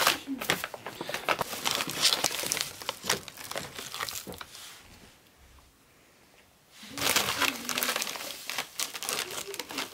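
Plastic bags and a plastic packet crinkling and rustling as powder is spooned out of them. The rustling comes in two bouts, with a quiet spell of about two seconds in the middle.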